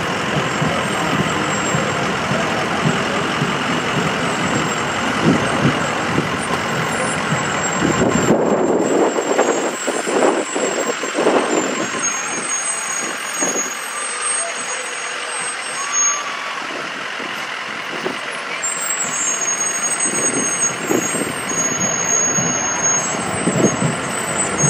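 Fire truck engines running as the apparatus rolls slowly past in a parade. The low engine rumble drops away about a third of the way through, leaving a steady street haze.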